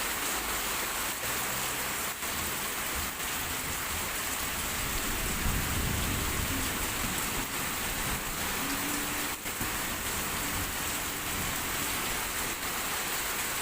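Heavy rain pouring down steadily onto a surface, a dense even hiss, with a low rumble swelling about five seconds in.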